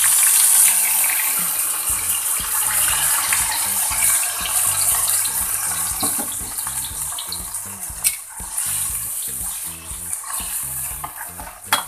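Wet ground spice paste (shallot, garlic, chilli, turmeric) hitting hot oil in a wok and sizzling loudly, the hiss slowly easing off as it fries. A metal spatula clicks sharply against the wok twice in the later seconds.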